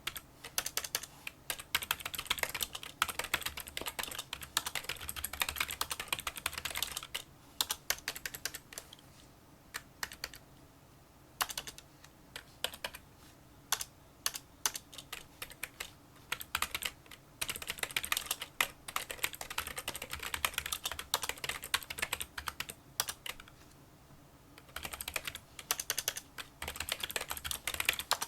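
Touch typing on a Kinesis Freestyle Solo split keyboard with membrane key switches: a run of small, fairly quiet clicks. The keystrokes thin out to scattered taps around a third of the way in, then speed up again, with two short pauses.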